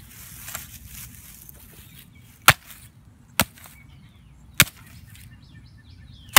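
A hatchet striking an old smartphone lying on grass: three sharp blows about a second apart, with a fourth right at the end.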